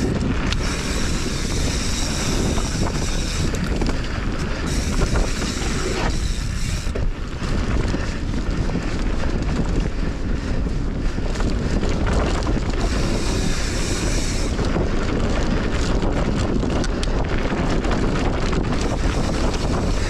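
Steady wind rush buffeting the microphone of a mountain bike's camera as the bike rolls down a dirt singletrack, mixed with the rumble of the tyres on the dirt.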